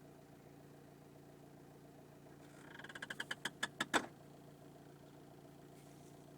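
Opel Astra H diesel engine idling steadily. About two and a half seconds in comes a quick run of a dozen or so sharp clicks, about six or seven a second and growing louder, ending in a single loud knock. This is the strange noise whose cause the owner does not know.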